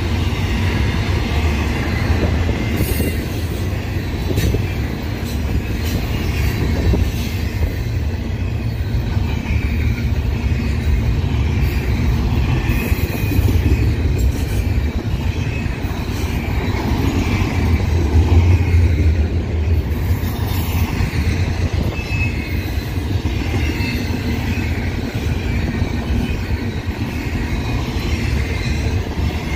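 Double-stack intermodal freight train rolling past: a steady rumble of steel wheels on rail, with faint wavering wheel squeal and a few knocks from the well cars.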